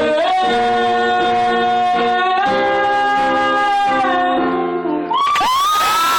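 A singer holds a long note over instrumental chords at the close of a live song. About five seconds in, the audience breaks into high whoops and cheering.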